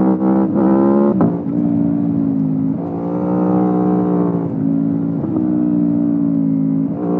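Aprilia Tuono V4 Factory's V4 engine through an Akrapovic exhaust, heard onboard while riding. It holds a steady note, then rises in pitch about three seconds in and drops again, with several abrupt breaks in pitch as the throttle and gears change.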